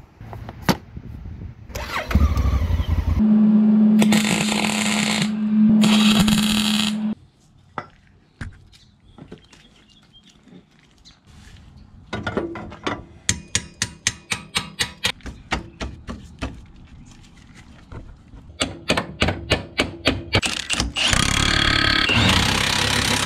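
Milwaukee Fuel cordless power tool running in several loud bursts as it drives fasteners, with a run of steady clicking, about three or four a second, partway through.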